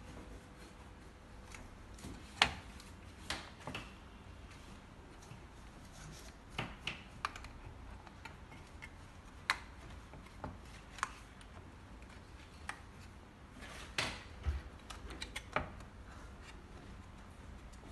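Irregular light clicks and taps of a replacement touch-screen glass panel being handled and pressed into the plastic display bezel of a Medtronic IPC console.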